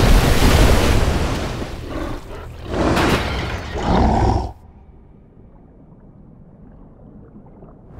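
Monster-film sound effects: a heavy crashing splash of water, then a giant gorilla's roar about four seconds in. The sound cuts off abruptly into a quiet, muffled underwater rumble.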